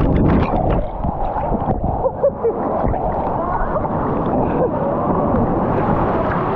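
Muffled churning water with gurgling bubbles, heard with the microphone under water; faint short warbles come through the steady rush.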